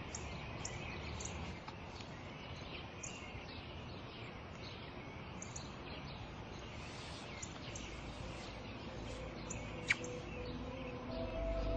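Small birds chirping in short repeated notes over a steady outdoor hiss, with one sharper, louder chirp near the end. Soft background music comes in just before the end.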